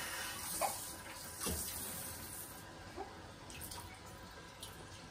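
Water running into a bathtub, a steady splashing hiss that eases off a little toward the end, with three brief faint sounds in the first three seconds.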